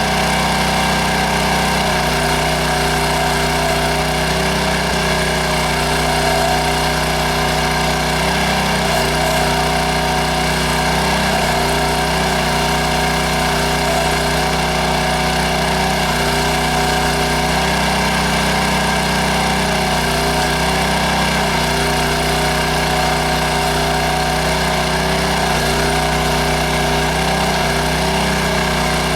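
Small gasoline engine of a towable backhoe running steadily, its pitch sagging briefly and recovering every few seconds as the hydraulics take load while digging.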